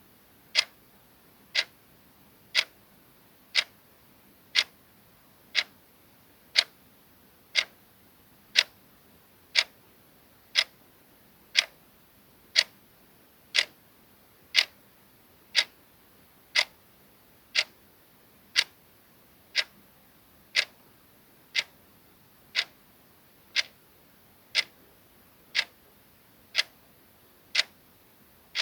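Clock ticking sound effect: sharp, even ticks, one a second.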